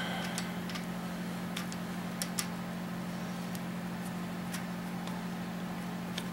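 Steady low mechanical hum from a running machine in the shop, with a few faint, scattered clicks of metal engine parts being handled.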